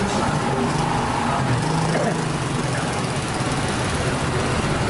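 Small engines running steadily, with street noise from a moving procession.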